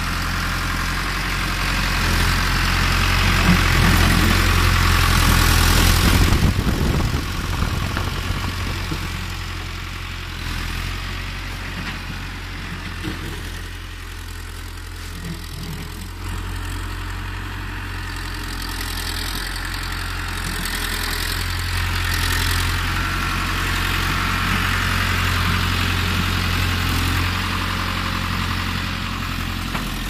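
Diesel engine of a Powertrac Euro tractor idling steadily. It is louder in the first few seconds, quieter in the middle and louder again in the second half.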